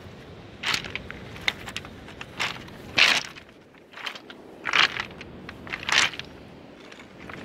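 Footsteps crunching on a beach of rounded pebbles, the stones grinding and clattering under each tread: about seven steps at an uneven walking pace.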